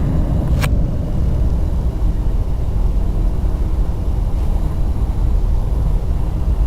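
Loud, steady, deep rumbling drone, the kind of 'strange sound' faked in sky-noise hoax videos, with one short click about half a second in.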